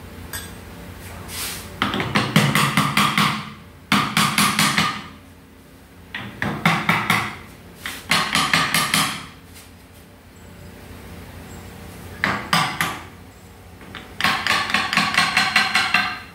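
A hand ratchet wrench clicking in six quick bursts of about a second each, as bolts are worked loose from a 2009 Honda CR-V automatic transmission case.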